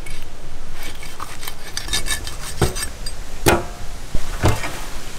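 A large knife cutting the fins off a giant catfish on an aluminium tray: clinks and scrapes of the blade on the metal, with three heavier chopping knocks.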